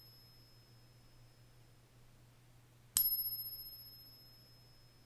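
A genuine 90% silver coin struck once by a Pocket Pinger striker, about three seconds in, giving a clear, high bell-like ring that slowly fades. This long, clean ring is the sound of real silver. The fading tail of the previous ping is heard at the start.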